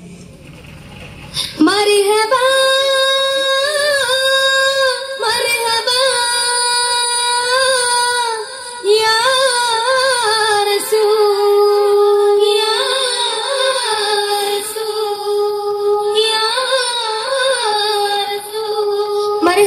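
A solo high voice sings a slow, ornamented devotional melody with long held notes that bend and turn. It comes in about a second and a half in.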